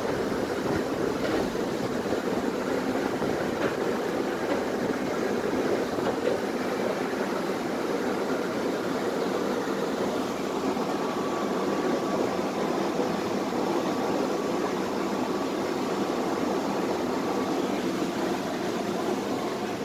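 Steady noise of a Tatra T3SU tram car, heard from inside the passenger compartment.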